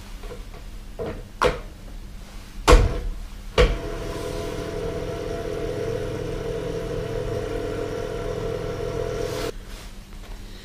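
A few sharp knocks, then a steady electric hum for about six seconds that cuts off suddenly.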